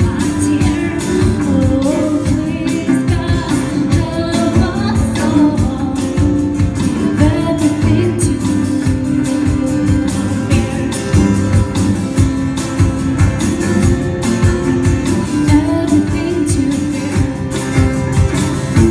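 A song with singing over guitar and a steady beat.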